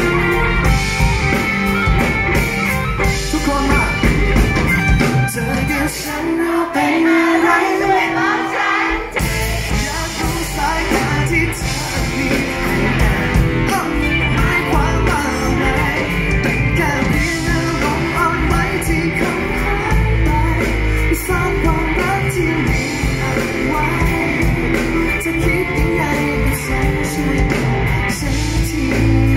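Live rock band with a male singer: electric guitar, bass and drums under a sung melody. About six seconds in, the bass and drums drop out for about three seconds, then the full band comes back in.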